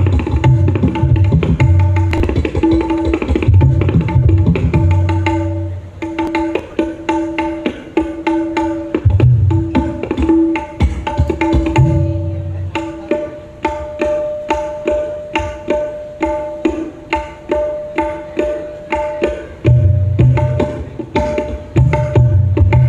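Dangdut gendang hand drums played solo in a fast rhythm: quick runs of sharp, ringing strokes on the small high drum, broken up by clusters of deep bass strokes on the large drum near the start, in the middle and again near the end.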